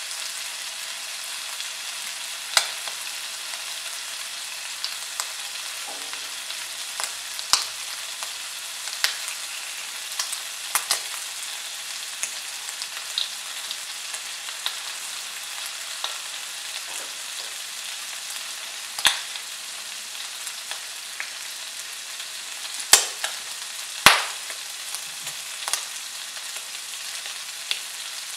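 Three thin slices of bacon sizzling in a frying pan: a steady high hiss with scattered sharp pops and crackles of spitting fat, the two loudest about a second apart near the end.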